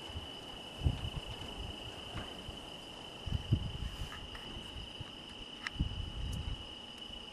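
Crickets chirring in a steady, continuous evening chorus at one high pitch. A few low thumps from the camera being handled come through, about a second in, around three and a half seconds in, and near six seconds.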